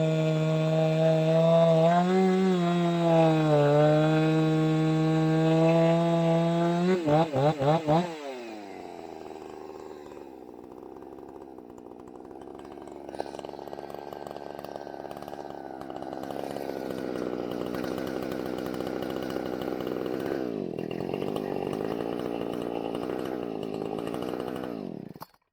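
Two-stroke chainsaw running at high revs for about seven seconds, stuttering through a few quick throttle blips as the pitch drops, then idling more quietly until the engine cuts off suddenly near the end.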